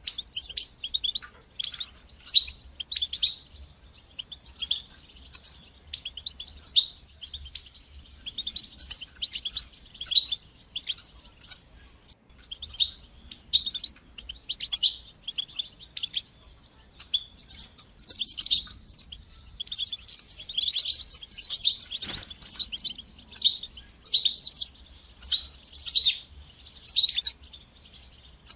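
European goldfinch singing: rapid runs of short, high twittering and chirping notes in bursts, with brief pauses between phrases.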